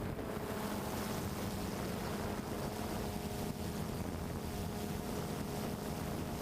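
A motor running steadily at an even pitch, with a constant rushing noise underneath.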